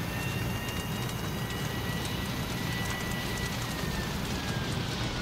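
Light turbine helicopter, an MD 500 type, running on the ground with its main rotor turning: a steady low drone with a thin, high, steady whine above it.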